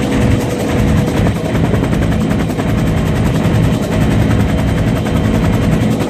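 Helicopter in flight heard from inside its cabin: a loud, steady rotor and engine sound with a rapid, even thumping of the blades.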